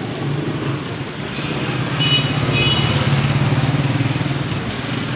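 Street traffic with a small vehicle engine running close by, growing louder about two seconds in and easing off near the end. Two short high beeps sound about two seconds in.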